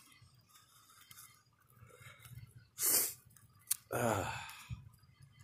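A person's breathy vocal sounds: a sharp exhale-like burst about three seconds in, a small click, then a short sigh falling in pitch.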